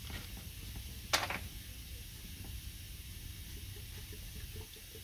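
Motor oil being poured from a bottle into the engine's oil fill, with one sharp click about a second in.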